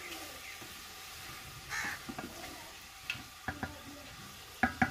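Wooden spoon stirring chicken and browned onions in a large aluminium pot, with faint sizzling and scattered knocks of the spoon against the pot, ending in a quick run of short ringing knocks.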